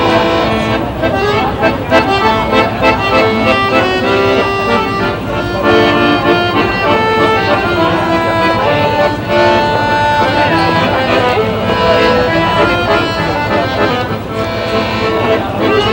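Accordion playing a melody over held chords, without a break.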